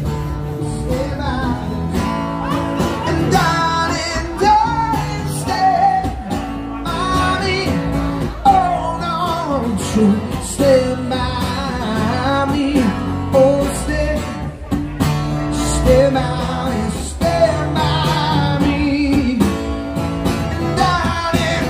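A man singing live while strumming an acoustic guitar, amplified through stage speakers.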